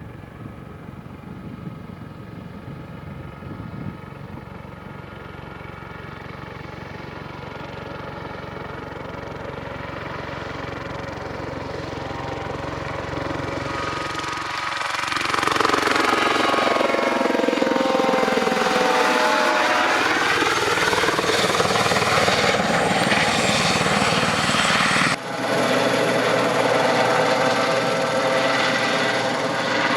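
Airbus H130 (EC130 T2) single-turboshaft helicopter's rotor and turbine noise growing steadily louder as it approaches, then passing close by at full loudness from about halfway through, its tone sweeping down and back up as it goes past. There is a brief dip in the sound near the end.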